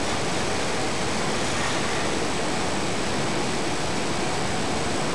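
Steady, even rushing noise with no breaks, with a faint high-pitched whine running through it.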